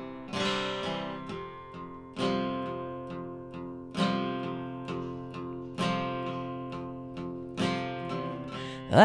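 Acoustic guitar played solo: chords struck about every two seconds and left to ring out, with lighter picked notes in between.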